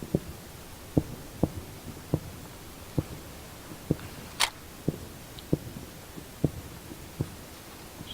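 Firework shells bursting in the distance: a series of low thuds, about one or two a second, with a sharper crack about halfway through.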